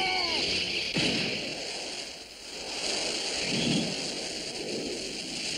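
Cartoon sound effects: a sharp bang about a second in, then the steady rush of jet engines, dipping briefly and swelling again past the middle.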